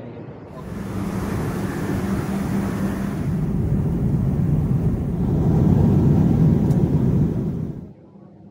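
Jet aircraft engine noise: a loud rushing rumble that builds over several seconds and cuts off suddenly near the end.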